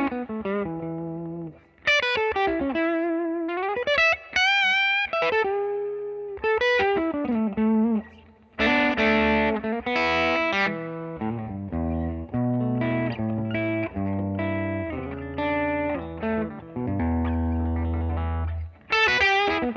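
Electric guitar played through a Universal Audio UAFX 1176 Studio Compressor pedal in dual mode, where one modelled 1176 overdrives the second for a compressed, overdrive-like tone. Single-note lines with bent and wavering notes give way, about halfway through, to fuller chords and low notes.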